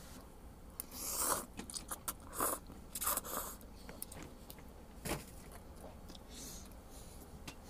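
A person slurping and chewing instant cup noodles close to the microphone: three noisy slurps in the first three and a half seconds and a shorter one about five seconds in, with light clicks of a metal fork in the paper cup.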